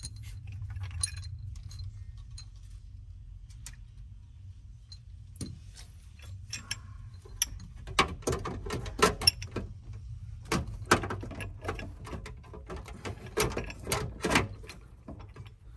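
Hard plastic trim and metal seatbelt hardware clicking, knocking and rattling as hands work them into place inside a car's rear quarter. The handling is sparse at first and becomes a busy run of clicks and knocks about halfway through, over a steady low hum.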